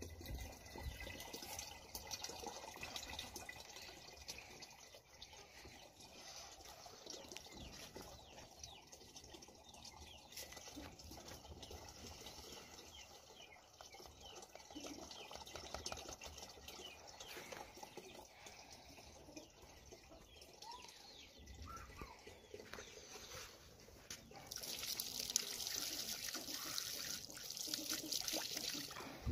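Thin jet of water spouting from the end of a plastic pipe into a pool, fed from a plastic barrel without a pump, making a steady trickling splash. Near the end the splashing gets louder as a hand breaks the stream.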